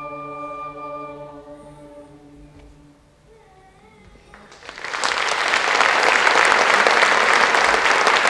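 A choir holds the final chord of a hymn, which fades out about three seconds in. After a brief hush, audience applause starts and quickly swells, and stays loud to the end.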